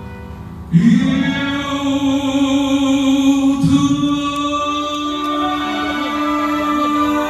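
Male singer singing a Vietnamese gospel song over a recorded backing track. After a brief lull, the music comes in suddenly about a second in and holds one long sustained note.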